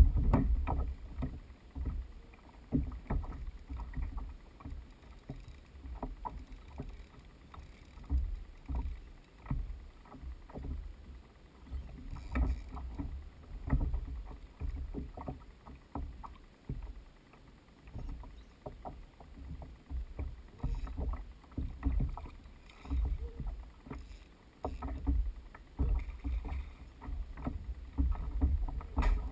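Water slapping and sloshing against a kayak's hull, with irregular low knocks and small clicks every second or two.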